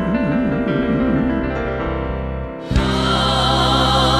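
Live gospel song ending: a male voice holds the last note with a wide vibrato over grand piano and band, fading away. About two and a half seconds in, the band and backing singers come in together on a loud sustained chord.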